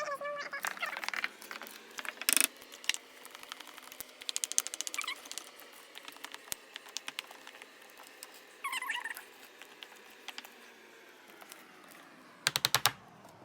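A utensil clicking and scraping against a mixing bowl while stirring brownie batter, in quick irregular runs of light ticks, with a single louder tap and a short burst of louder knocks near the end.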